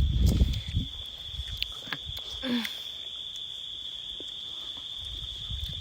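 Insects droning with one steady high-pitched buzz throughout. Louder low rustling and knocks in the first second, and a short low sound about two and a half seconds in.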